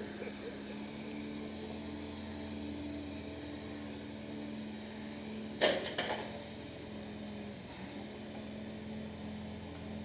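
John Deere backhoe loader's diesel engine running steadily as the machine drives off over rough ground. About halfway through there is a sharp knock, with a smaller one right after.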